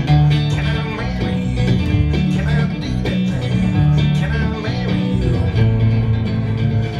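Live acoustic country music: an upright double bass plucking low notes under an acoustic guitar.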